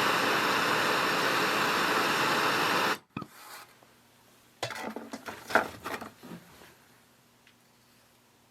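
Handheld gas torch burning with a steady, loud hiss, heating a screwdriver tip, then shut off abruptly about three seconds in. A few fainter short sounds follow.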